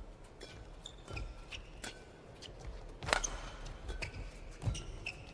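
Badminton rally: several sharp racket hits on the shuttlecock, the loudest about three seconds in, with short squeaks of players' shoes on the court mat between them.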